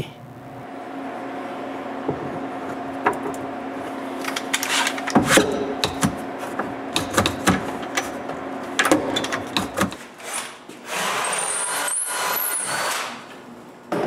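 Wooden spacer blocks handled and Irwin Quick-Grip bar clamps squeezed tight against a cabinet: a scattered run of clicks and knocks over a steady low hum. Near the end comes a steadier noisy sound lasting about two seconds.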